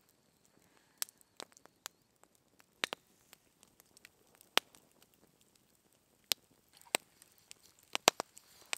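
Wood fire crackling, with sharp, irregular pops; the loudest come about halfway through and near the end.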